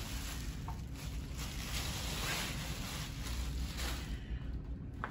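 Clear plastic bag crinkling and rustling as a subwoofer is pulled out of it and unwrapped, fading out about four seconds in, over a steady low hum.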